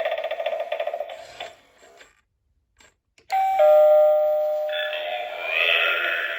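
Doorbell chime sounding a two-note ding-dong, a higher note then a lower one, that ring on, with a wavering sound joining in after; before it, the tail of another doorbell's sound fades out into a second of silence.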